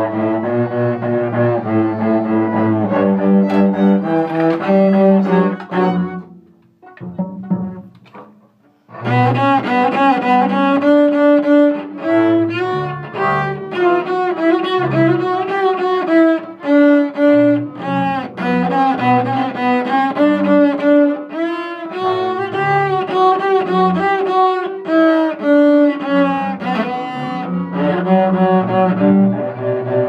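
A student string ensemble playing a piece together, with a cello bowing close to the microphone under the other strings. The playing drops out for about two seconds near seven seconds in, then starts again.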